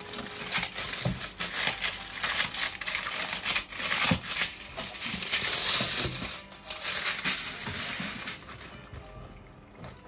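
Clear plastic packaging crinkling and rustling as wrapped items are handled and shifted in a cardboard box, in dense crackles that die down near the end.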